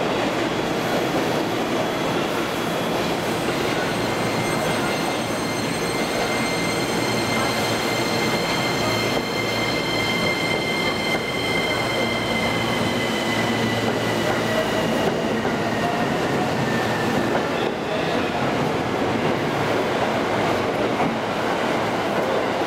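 E231 series electric commuter train pulling out of the platform and running past at close range, a steady rumble of the cars with a high-pitched steady whine that sinks slightly in pitch and fades in the second half.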